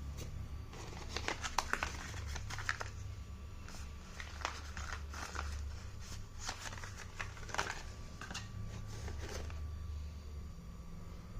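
Hands handling packaging and its contents, crinkling and clicking in several short clusters, over a steady low hum.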